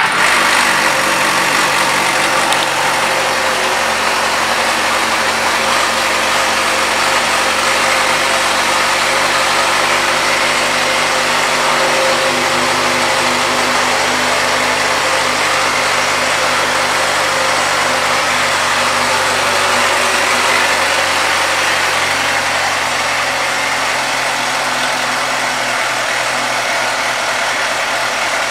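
2004 Suzuki GSX-R600's inline-four engine idling steadily just after being started. The idle eases slightly lower about two-thirds of the way through.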